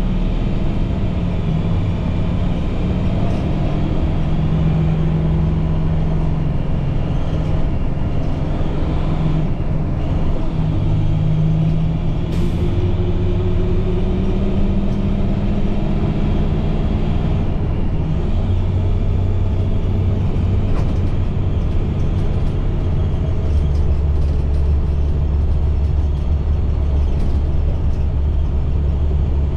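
2010 IC CE300 school bus's MaxxForce DT diesel engine running under way, heard from inside, with road noise. Its pitch drops and rises in steps several times. The transmission has a really hard time shifting.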